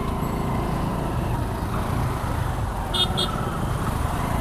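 Small single-cylinder motorcycle engine running at low speed among other motorbikes and cars in slow traffic, a steady low rumble. A brief high-pitched sound comes about three seconds in.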